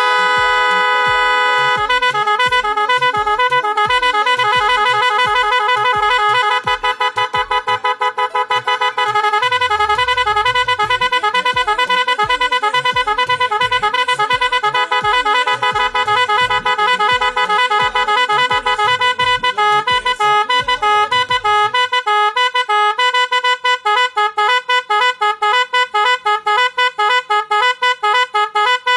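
Electronic musical motorbike horn playing a tune: a held note, then a melody of changing notes over a bass beat about twice a second. The beat drops out about three-quarters of the way through while the melody goes on.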